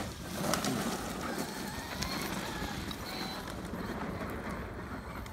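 Large-scale RC monster truck driving over loose dirt: a motor whine that rises and falls over the crunch and hiss of its tyres on the dry track.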